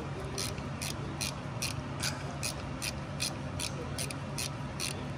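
Socket ratchet wrench clicking as it is swung back and forth on a bolt, about four clicks a second, over a steady low hum.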